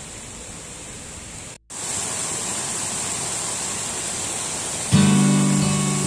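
Steady rush of a waterfall and river rapids; after a brief break about one and a half seconds in, the water rush is louder. Near the end an acoustic guitar starts playing, strummed chords over the water.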